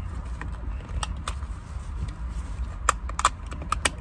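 Racing harness straps being adjusted: scattered light clicks and rattles from the metal adjusters and buckle hardware, with a quick cluster of them near the end, over a steady low background rumble.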